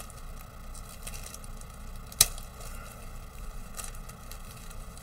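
Clear plastic bag crinkling as it is opened and a plastic model-kit sprue is taken out, with one sharp click about two seconds in.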